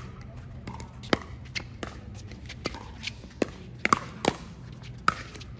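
Pickleball paddles striking a hard plastic ball in a fast doubles rally: a string of sharp pocks at uneven intervals, about ten in all, some louder than others.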